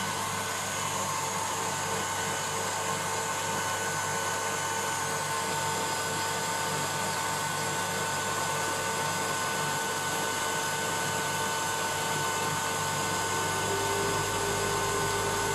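Electric stand mixer running steadily at speed, a continuous motor whine with the whisk whipping eggs and sugar toward the ribbon stage.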